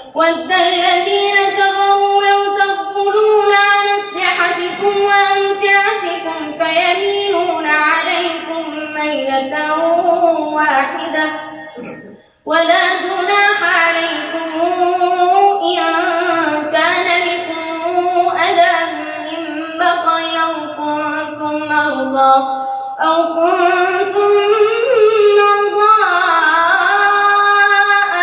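A boy reciting the Quran in the melodic, chanted tajwid style, holding long ornamented notes that rise and fall, with one short break for breath about twelve seconds in.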